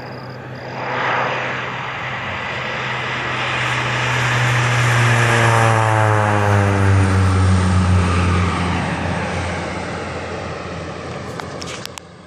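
Agricultural spray plane making a low pass: the engine and propeller drone builds up, drops in pitch as the plane goes by about six seconds in, then fades as it climbs away. A few sharp clicks near the end.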